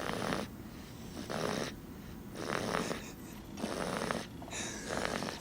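Pretty loud snoring: five rasping breaths about a second apart. The family take it to be the young child snoring.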